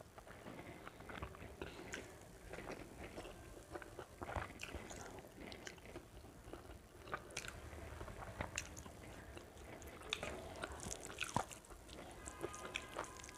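A person chewing food and eating rice by hand: scattered small wet mouth clicks and smacks, with fingers mixing into the rice.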